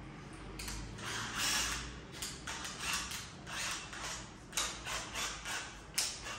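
Keyless chuck of a cordless drill being twisted by hand to change the bit, giving a run of short, uneven ratcheting clicks.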